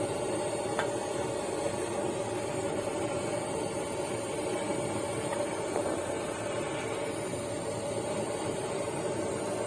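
Gas torch flame hissing steadily, with a faint tick or two.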